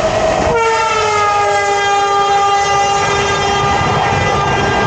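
Train horn sounding one long, loud multi-note blast: a second chord comes in about half a second in, dips slightly in pitch and then holds, its lowest note dropping out near the end, over the running noise of the train.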